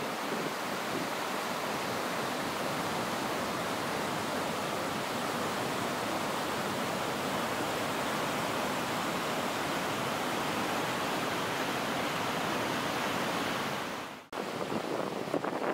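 Floodwater of a swollen river rushing and churning white over rocks and a weir, a steady even rush. Near the end it cuts out for a moment and comes back rougher, with wind buffeting the microphone.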